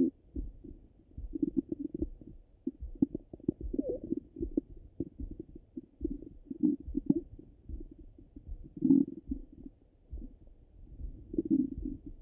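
Bowel sounds of a full stomach heard through a stethoscope: irregular short gurgles and rumbles. The louder gurgles come at the very start, about nine seconds in, and about eleven and a half seconds in.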